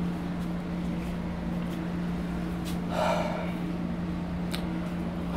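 One short, audible breath from a person about three seconds in, over a steady low hum, with a few faint clicks.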